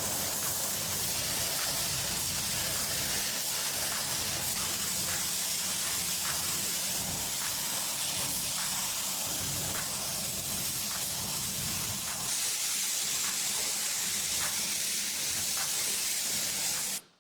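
A steady, unbroken spraying hiss with faint regular ticks through it, cutting off suddenly near the end.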